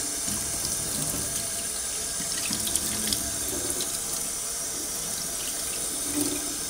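Kitchen tap running steadily into a stainless steel sink, the stream splashing over glass beer bottles held under it.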